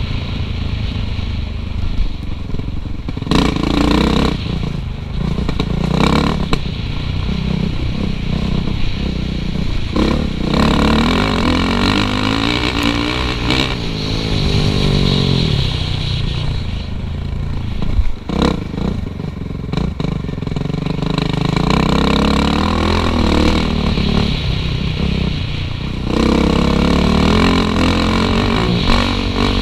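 Suzuki RM-Z450 four-stroke single-cylinder dirt bike engine ridden hard on a trail, its pitch rising and falling again and again as the throttle is opened and closed. A few sharp knocks and clatter come through, mostly in the first few seconds.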